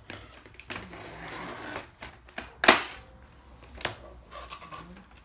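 Rustling and light clicks of plastic being handled, then a loud sharp plastic snap nearly three seconds in and a lighter click about a second later, as the magazine is fitted into a Nerf Fortnite AR-L toy blaster.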